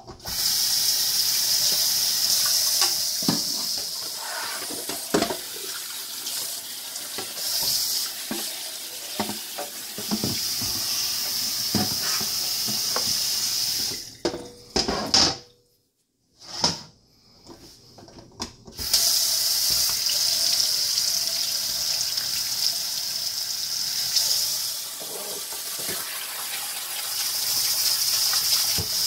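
Kitchen faucet running into a stainless steel sink, with short knocks and clunks of things being rinsed under it. The water is shut off about halfway through for a few seconds, with a few clicks, then turned back on to rinse a bowl of cut pineapple chunks.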